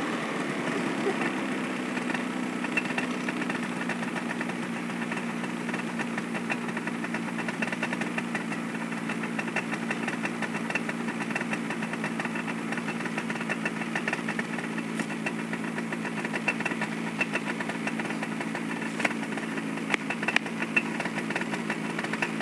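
Snowmobile engine idling steadily while the sled sits stuck nose-down in deep snow, its revs settling a little just after the start, with a fast light ticking throughout.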